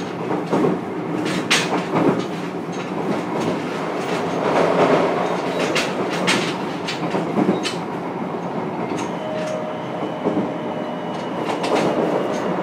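JR Kyushu 303 series electric train running, heard inside motor car MoHa 303-3: a steady rumble of wheels on rail, broken by sharp clacks at irregular intervals as the wheels pass over rail joints.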